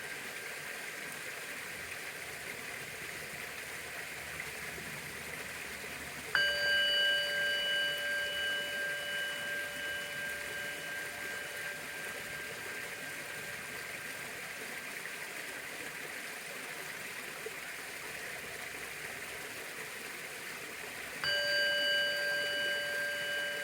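Orin, a Japanese Buddhist bowl bell, struck twice: once about six seconds in and again near the end. Each strike rings on in a long, slowly fading tone of several pitches, and the tail of an earlier strike is still ringing at the start. A steady hiss runs underneath.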